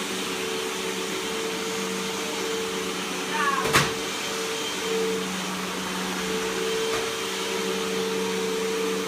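Vacuum cleaner running steadily with a constant motor hum, and one sharp knock a little under four seconds in.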